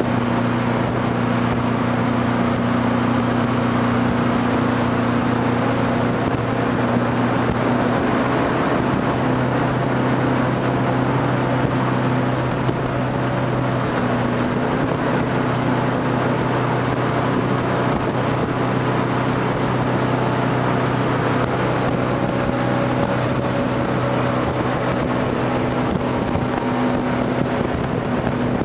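A jet boat's engine running steadily at speed, a constant low note over the rushing hiss of water and wind.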